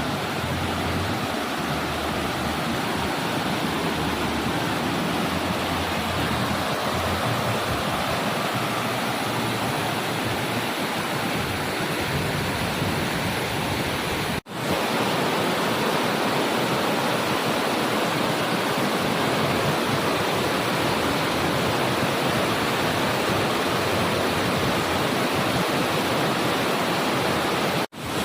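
Steady rushing of a waterfall. The sound cuts out for an instant about halfway through and again near the end.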